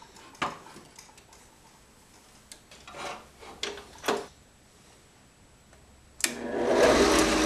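A few light clicks and knocks, then about six seconds in a click as the benchtop drill press switches on and its motor comes up to speed, running with a steady hum.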